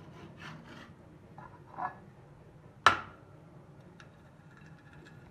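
Metal serving spoon scooping biryani rice out of a metal pot and onto a plate: soft scraping, then one sharp metallic clink with a short ring about three seconds in, and a faint tick a second later.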